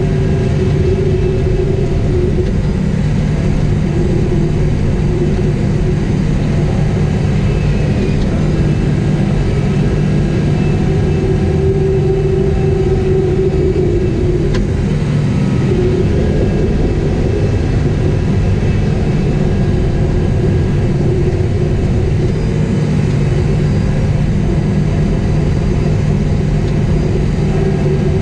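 Caterpillar 973C track loader's diesel engine running steadily under working load, heard from inside the cab. The engine note rises and dips a little as the load changes.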